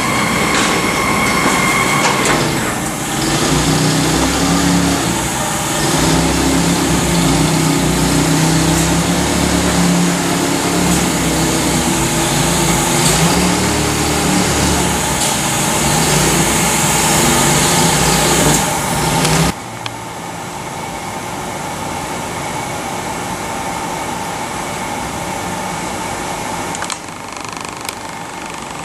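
Trumpf TruLaser Tube 5000 CNC tube laser cutter running: a loud, steady machine hum and hiss with a wavering low drone. About two-thirds of the way through it drops suddenly to a quieter steady hum.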